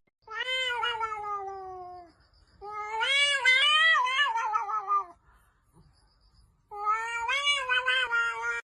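A domestic cat meowing: three long, drawn-out meows with short pauses between them. The first falls in pitch, the second rises and wavers before dropping, and the third holds fairly level.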